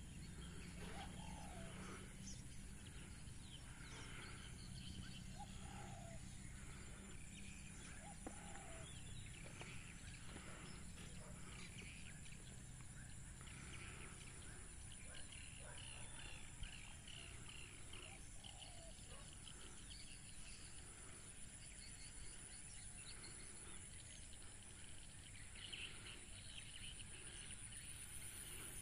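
Faint outdoor evening ambience: birds give short calls every few seconds, with a few higher chirps, over a steady high-pitched whine and a low rumble.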